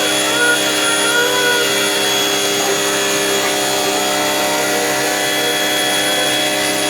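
Motorised drain-cleaning machine running steadily with an even mechanical hum.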